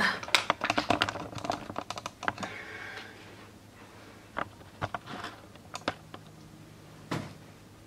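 Light clicks and taps from things being handled on a table, thick and rapid for the first few seconds, then a handful of single clicks spaced apart.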